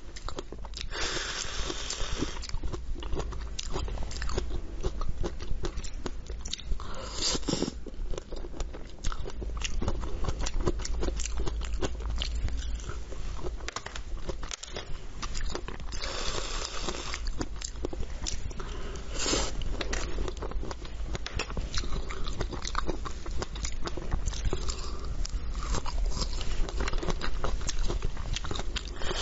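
Close-miked eating sounds: wet bites and chewing of fresh strawberries with whipped cream. A couple of short hisses come from a whipped-cream aerosol can being sprayed, one soon after the start and another about halfway through.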